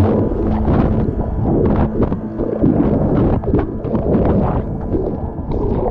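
Breaking surf churning and splashing over an action camera held in the waves: a loud, rough rush of water with many sharp splashes and a heavy low rumble from the water hitting the camera.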